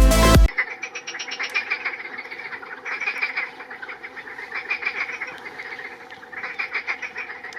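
A chorus of frogs croaking in rapid, rattling pulses that swell in bouts about three seconds in and again near the end. Music cuts off about half a second in.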